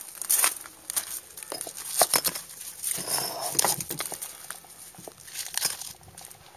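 Irregular crunching steps on gravel, with scattered sharp clicks and knocks.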